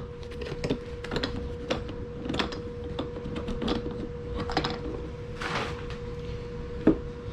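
Irregular light clicks and knocks of an A/C hose crimping tool kit, a squeeze-type crimper with interchangeable dies, being handled and looked over, with one sharper knock near the end.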